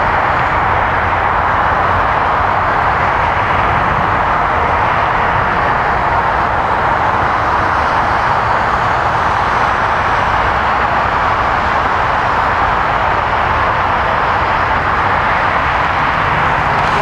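Steady rushing noise from a Boeing 747-400F's four jet engines running at taxi power as the freighter rolls along the taxiway.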